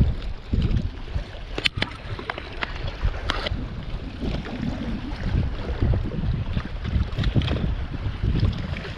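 Wind buffeting the microphone: a steady low rumble, with a few sharp clicks about two and three seconds in.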